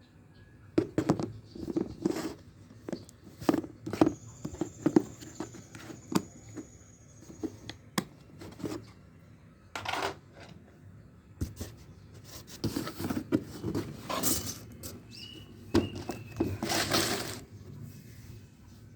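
Packaging being handled and unwrapped: irregular rustling and tearing with scattered clicks and knocks, and longer rustles near the end.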